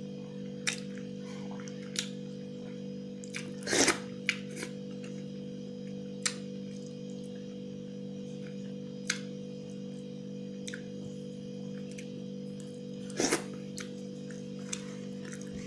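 Eating sounds from a person eating rice by hand: scattered sharp mouth smacks and clicks, with two louder chewing bursts about four seconds in and again near the end. A steady low hum runs underneath.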